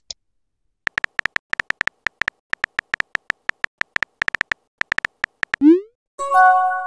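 Texting-app sound effects. Over about four seconds there is a fast, irregular run of short high keyboard tap clicks as a message is typed letter by letter. Near the end comes a short rising pop as the message is sent, then a bright chime that fades.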